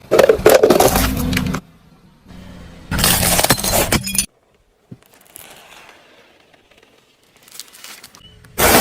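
Objects crushed under a car's tyre, crunching and shattering like breaking glass, in two loud bursts of about a second and a half each, one at the start and one about three seconds in, with a short third crash near the end. Each burst cuts off abruptly.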